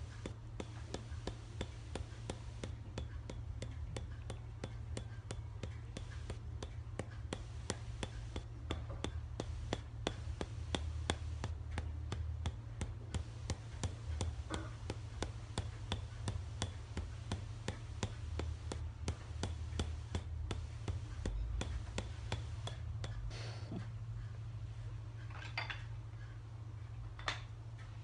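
Tok Sen massage: a wooden mallet rapidly tapping a wooden wedge held against the body, about four sharp knocks a second, thinning to a few scattered taps near the end.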